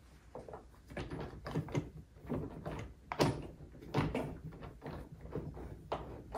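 Irregular clicks and knocks of the ride-on car's parts being handled and fitted together during assembly, with a louder knock about three seconds in.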